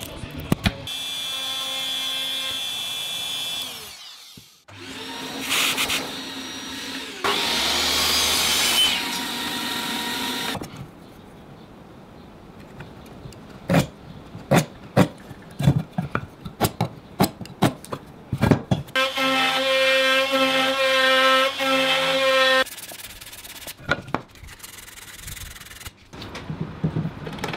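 Power tools cutting mortises in wood, running in three separate bursts that spin up and wind down. About halfway through comes a quick string of sharp knocks.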